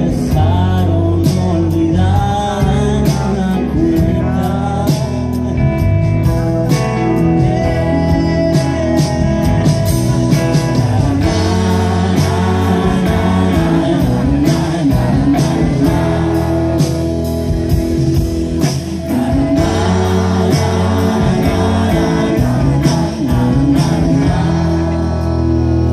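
Live rock band playing loudly: a male singer over electric guitars, bass guitar and a steady drumbeat.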